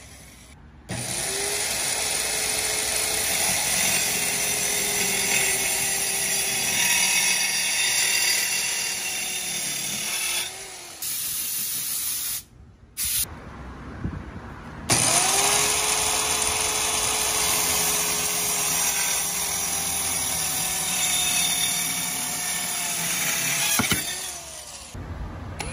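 Compact circular saw spinning up with a rising whine and cutting through 2x4 lumber, a steady motor tone over a rough cutting noise, then winding down. After a short break a second cut follows the same way.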